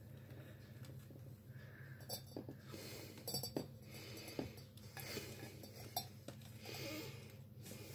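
Faint clinks and taps on a glass vase as a small pet rodent scrabbles around inside it and climbs up to the rim, with a few sharper glassy clicks in the middle.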